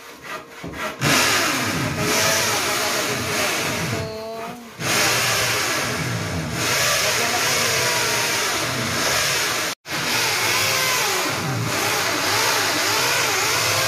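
A power tool's motor running loudly on metalwork, its pitch wavering up and down, with a few abrupt breaks where the sound cuts off and restarts.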